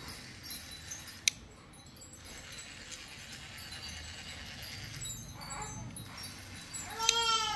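A cat meows loudly near the end, one wavering meow, after a softer meow about five and a half seconds in. Faint high tinkling like wind chimes sounds throughout, with a single sharp click about a second in.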